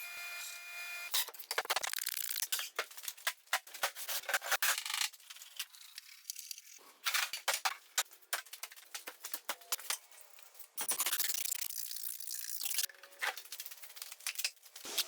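Small wooden pieces being worked by hand: irregular rubbing and scraping with many sharp clicks and taps, and a steadier rubbing stretch about two-thirds of the way in.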